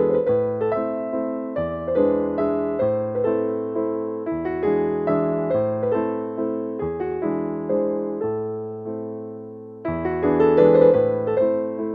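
Background piano music: a gentle run of evenly paced struck notes, each fading away, over bass notes that change every few seconds.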